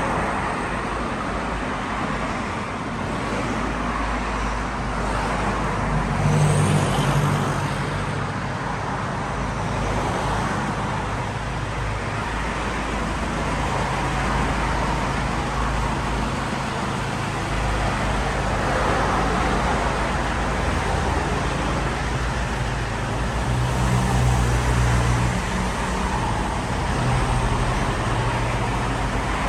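Motor vehicle engine running steadily amid continuous road and traffic noise, with a brief high rising sound about six seconds in.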